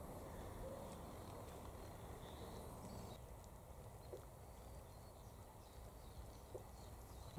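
Faint outdoor ambience: a low steady rumble with a few faint bird chirps.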